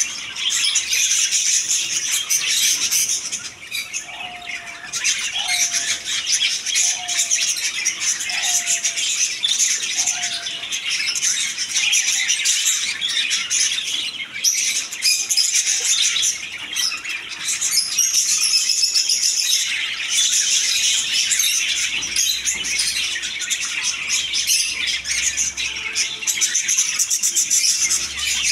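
A flock of budgerigars chattering and chirping without a break in aviary cages. Between about 4 and 10 seconds in, a lower, falling note repeats five times, about every second and a half.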